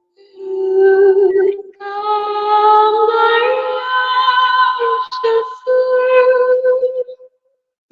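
A woman singing wordless, long held notes with a slight waver, in a few phrases with short breaks, fading out shortly before the end: vocal toning of healing 'frequencies'.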